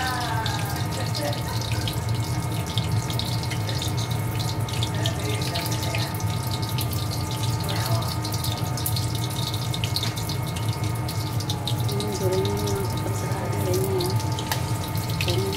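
Rice-paper shrimp spring rolls deep-frying in hot oil in a wok: a steady sizzle full of small crackles and pops, over a steady low hum.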